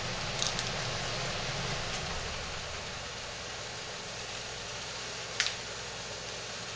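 Steady background hiss, with light clicks about half a second in and again about five seconds in as chunks of shea butter are put into a glass measuring cup on a kitchen scale.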